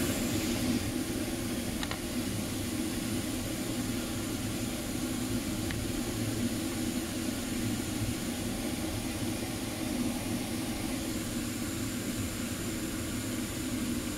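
A steady, even whirring hum with a hiss over it, like a fan running, holding at one level throughout.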